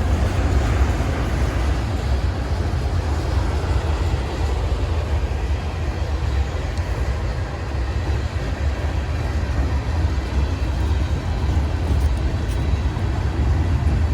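Freight cars of a long, slow Norfolk Southern manifest train rolling past: a steady, unbroken low rumble of wheels on rail.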